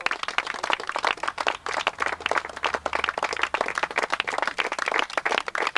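A small group of people applauding by hand: dense, steady clapping.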